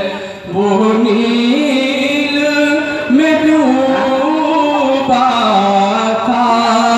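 A man singing a naat solo through a microphone, holding long notes with gliding ornaments. There is a short pause for breath just after the start.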